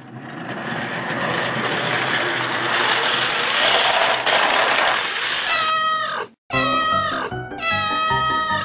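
A steady rushing noise for about five seconds, then a house cat meowing several times, each meow falling in pitch, over background music.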